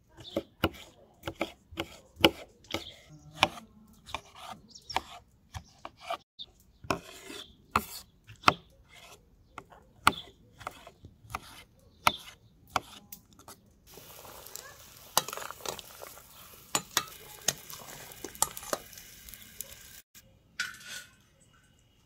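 Food preparation: a run of irregular sharp knocks of a knife or utensil on a hard surface, about one or two a second, then, about fourteen seconds in, some six seconds of food sizzling in a hot pan with clicks and scrapes of a utensil.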